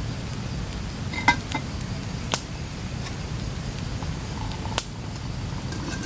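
Metal camp cookware clinking over a wood campfire: a knock with a brief metallic ring about a second in, then two sharp crackles from the burning wood, over a steady low background noise.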